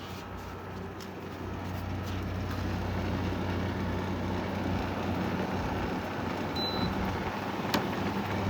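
Arctic King 5,000 BTU window air conditioner running on cool: a steady hum of the compressor under the fan's rush of air, which grows louder about two seconds in. A short high beep about two-thirds through and a sharp click just after it.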